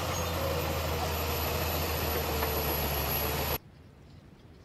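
Bulldozer's diesel engine running with a steady drone as it works trash at a landfill, cutting off abruptly about three and a half seconds in.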